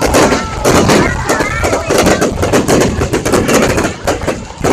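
Fireworks going off in a dense, continuous run of bangs and crackles, with a few short whistles about a second in.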